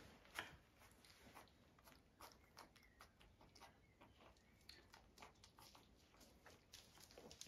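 Puppies suckling at their mother's teats, a faint, irregular run of small wet smacking and sucking clicks.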